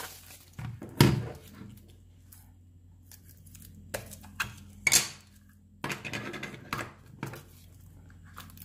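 Hands handling a weather station's packaging and parts: scattered clicks, knocks and rustles, the loudest a sharp knock about a second in, over a faint steady low hum.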